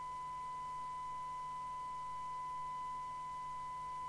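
Steady 1 kHz test tone from an Amstrad CB901 CB radio's receiver: a signal generator's tone being demodulated during a SINAD sensitivity check. It is now a clean sine wave because a replacement 455 kHz filter has been fitted. A faint low hum runs underneath.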